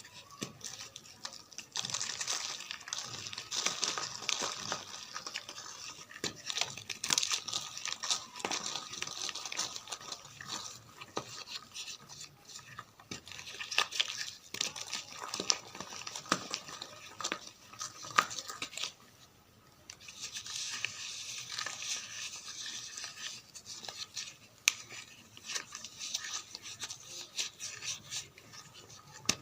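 White gym chalk being crumbled: a dense, gritty crackle of many small snaps and crunches, with a brief pause a little past the middle.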